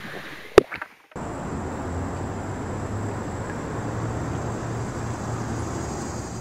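Two sharp knocks about half a second in, then, after a brief drop-out, a steady rushing outdoor noise with a low hum, like moving water or wind on the microphone.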